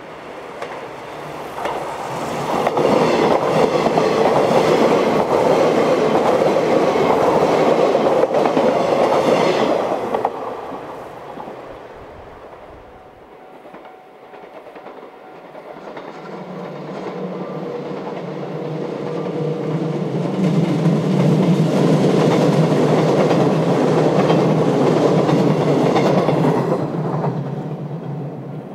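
381-series electric train running along the line, its wheels clattering over the rail joints. The sound swells loud twice, with a quieter lull in between.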